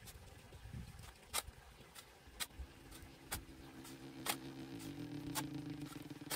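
Shovel digging into soil and stones, with a sharp click about once a second. A low, steady engine hum from a vehicle comes in about three seconds in and carries on underneath.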